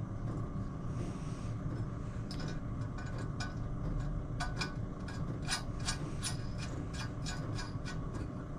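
Irregular light metallic clicks and clinks of nuts, studs and hand tools being handled against an engine's alloy crankcases, scattered through and thickest around the middle.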